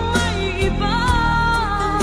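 A recorded Filipino pop love song playing: a steady low bass under a melody line that glides up and down.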